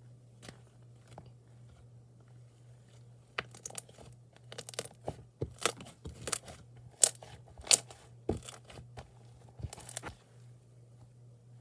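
Slime being squeezed and worked by hand, giving an irregular run of sharp crackling pops and clicks from a few seconds in, loudest near the middle. A low steady hum sits underneath.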